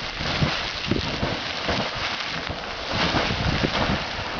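Sawmill Geyser erupting: hot water splashing and spattering continuously, with many short sharp splashes.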